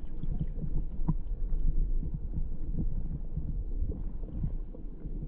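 River current heard through a submerged camera's waterproof housing: a muffled low rumble with scattered soft knocks.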